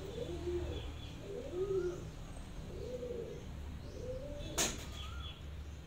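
A pigeon cooing repeatedly in low, rounded calls about once a second, with a few faint higher bird chirps. About four and a half seconds in there is one sharp knock of metal kitchenware as rice is tipped from a steel plate into the aluminium pot.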